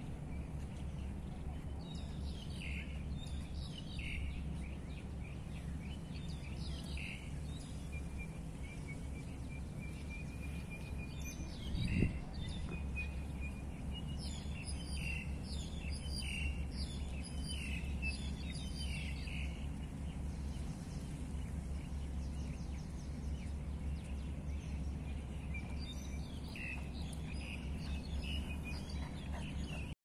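Small birds chirping on and off over a steady low hum of city background noise. A thin, steady high note runs for a few seconds near the middle, and a single brief thump comes about twelve seconds in.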